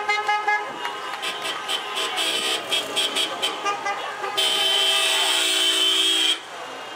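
Car horns honking from a passing caravan of cars: a run of short repeated toots, then one long steady blast from about four and a half seconds in that cuts off suddenly just after six seconds.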